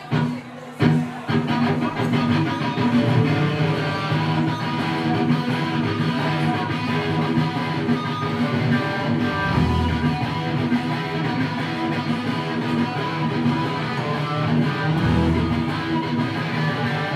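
Live band playing an instrumental passage: electric guitar to the fore with strummed chords over bass guitar, deep bass notes swelling twice in the second half.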